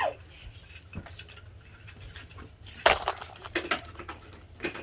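A brief clatter of hard knocks and clicks about three seconds in, with one more knock near the end.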